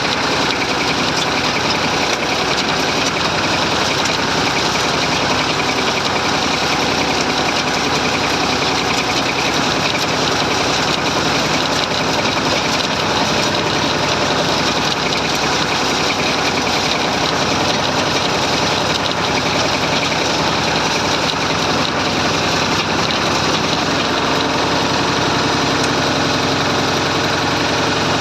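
Massey Ferguson 35 tractor engine running steadily while pulling a plough.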